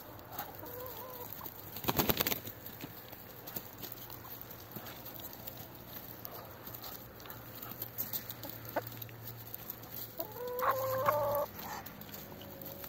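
Domestic hens clucking, with a short burst of clicking about two seconds in and a louder, drawn-out hen call near the end.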